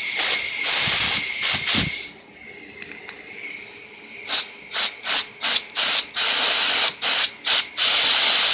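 Compressed-air blowgun blasting into a brake caliper's fluid port to force out a piston seized after decades untouched. It hisses in a few strong blasts, then softer and steadier, then in a rapid string of short blasts ending in a longer one.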